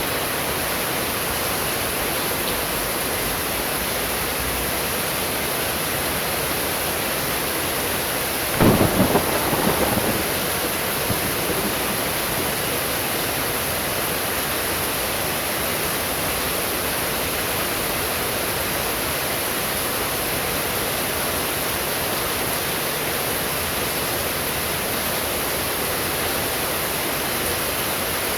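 Steady heavy rain hissing, with one sharp crack of thunder about a third of the way in that rumbles away over a few seconds.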